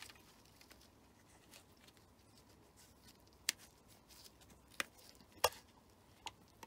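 Rolleiflex 2.8F twin-lens reflex camera handled in gloved hands, with faint rubbing and four sharp metal clicks in the second half as the back latch is worked and the back opened.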